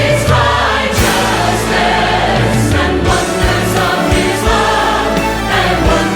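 Large choir singing a Christmas song with full orchestra accompaniment, over a strong sustained bass and percussion hits about once a second.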